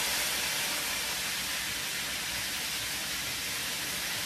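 Steady sizzle of food frying in hot oil in a pan on the stove.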